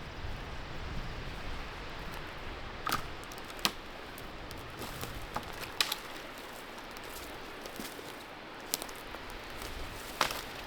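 Steady wind noise with a few sharp, separate snaps and clicks from twigs and brush, the loudest about three seconds in and near the end.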